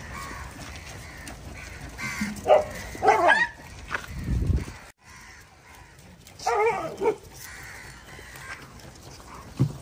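Dog barking in short bursts: a couple of barks a few seconds in, then another about two-thirds of the way through, with a low rumble between them.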